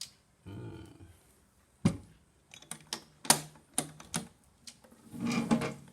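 A string of sharp clicks and clacks from an aluminium motorcycle side-box pannier being handled and opened, the loudest clack about two seconds in.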